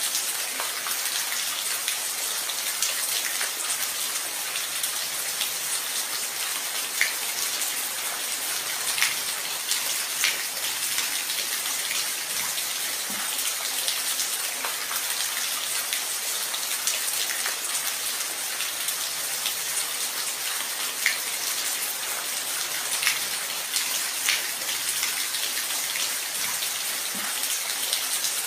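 Steady rain: an even hiss of falling rain with scattered louder individual drops ticking on a surface.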